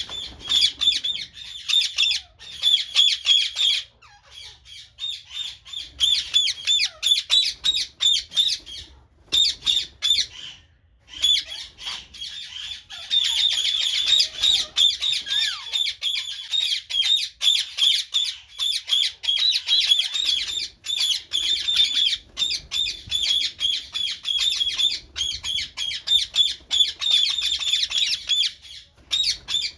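A flock of small birds squawking and chirping in rapid, overlapping chatter, with a few brief pauses.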